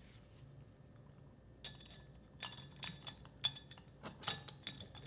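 Light metallic clinks, about eight at uneven intervals after a quiet second and a half. The bolts and metal bonnet of a Kimray 30 HPG pressure pilot knock against the housing flanges as the bonnet is lowered over the spring and the bolts are set through the holes.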